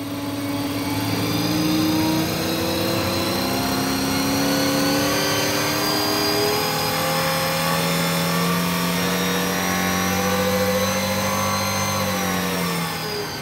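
Rotax 912iS flat-four aircraft engine running under dyno load, its revs climbing slowly and steadily through a sweep from about 3,000 to 5,800 rpm. Near the end the revs drop and the sound falls away as the run finishes.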